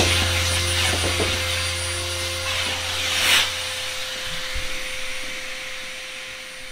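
Dirt Devil CV1500 RV central vacuum running: a steady motor tone over airflow hiss through the hose, with a brief louder rush of suction about three seconds in. The sound fades out toward the end.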